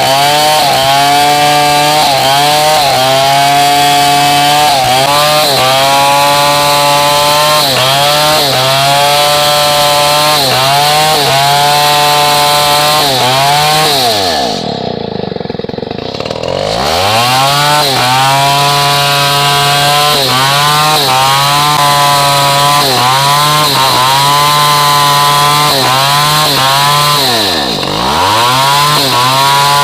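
Stihl 070 two-stroke chainsaw running at high revs while cutting hardwood, its pitch sagging and recovering about once a second as it bogs under load. About halfway through the revs drop steeply, nearly to idle, and climb back. Near the end there is a brief dip.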